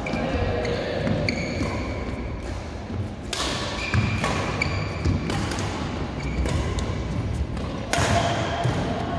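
Badminton doubles rally: rackets striking the shuttlecock in a run of sharp hits from about three seconds in, with shoes squeaking and feet thudding on the court mat, echoing in a large sports hall.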